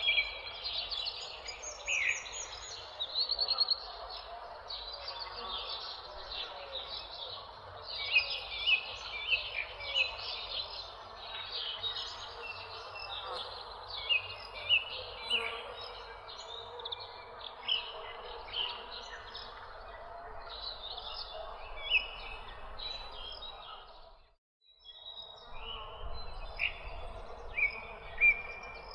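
A chorus of small birds chirping, with many short, quick, overlapping calls over a steady background wash. Near the end all sound cuts out for about a second, then the chirping resumes.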